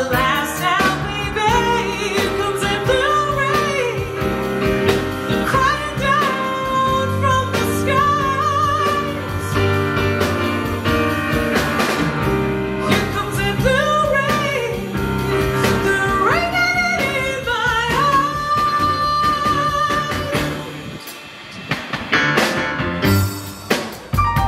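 A blues band playing live: upright bass, drum kit, electric guitar and keyboard, with a singing lead line on top. The band drops back briefly near the end before coming in fully again.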